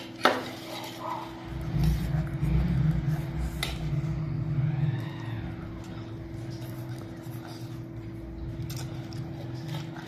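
Forks on steel plates giving a few sharp clinks and scrapes as noodles are eaten, over a steady low hum. A louder low rumble comes in about two seconds in and fades by about five seconds.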